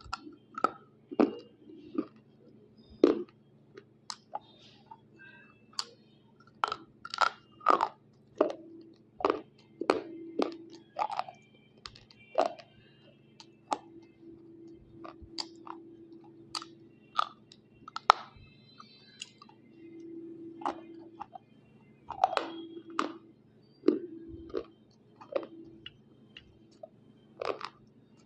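Teeth biting and chewing hard white unshaped slate pencil: irregular sharp crunches and cracks, about one or two a second.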